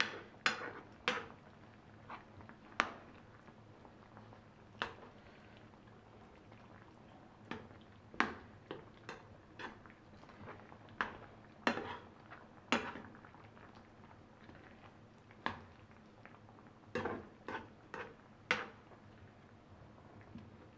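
A metal spoon stirring chicken pieces in a creamy sauce in a frying pan, clinking and knocking against the pan at irregular moments, some in quick clusters.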